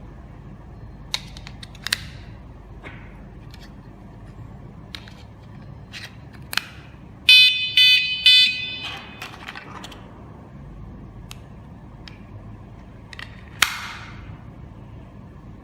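KS-SF22R vehicle security alarm unit giving three short, loud electronic beeps in quick succession about halfway through. Scattered sharp clicks and knocks of the unit and remote being handled come before and after.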